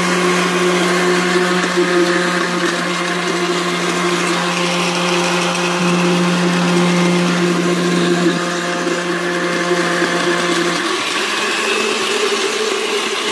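Countertop blender motor switched on, running steadily as it blends nuts, seeds and oats in almond milk into a smoothie; its steady hum changes and drops in pitch near the end.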